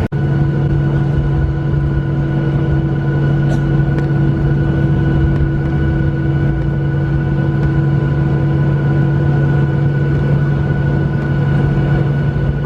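Boeing 737 airliner cabin noise: a steady jet engine and airflow drone with a constant low hum.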